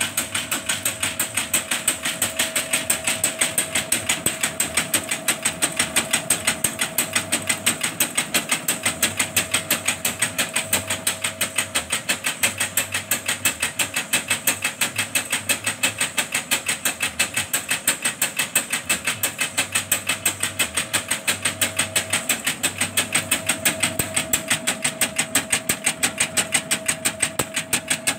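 Sifting machine running, its shaking sieve clattering in a steady rhythm of about five knocks a second over a constant motor hum.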